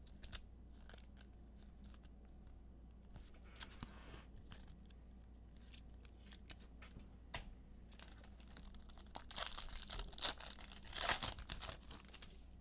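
Trading card pack wrapper being torn open and crinkled, with scattered light clicks of cards being handled; the rustling is loudest near the end.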